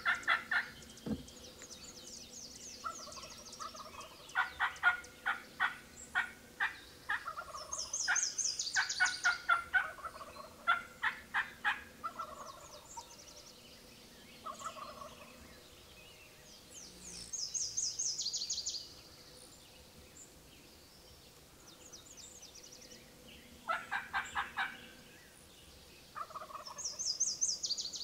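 Wild turkeys gobbling and calling in repeated bursts of fast rattling notes, loudest through the first half, with a longer gap before another burst near the end. A songbird sings a high, falling song three times.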